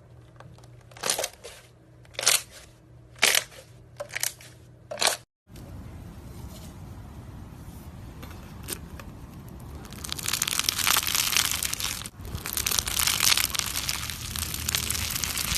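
Slime being squeezed and handled: about six sharp crunches or pops in the first five seconds. After a cut, a steady crinkling texture turns into dense, loud crackling for the last five seconds.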